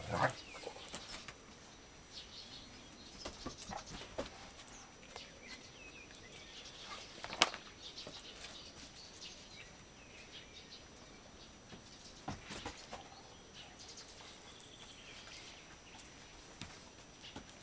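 Two large dogs moving about and playing on mats, with scattered scuffling, paw steps and rustling. A single sharp click comes about seven seconds in.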